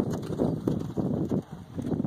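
A horse cantering past close by on a sand arena, its hoofbeats thudding unevenly, with wind rumbling on the microphone.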